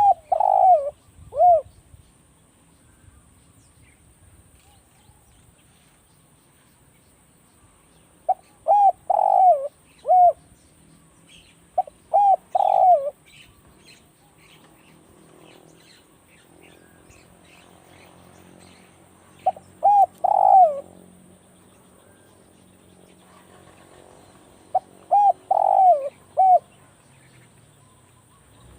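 Spotted dove cooing: five phrases of three or four notes each, a few seconds apart, with faint high chirps of small birds in between.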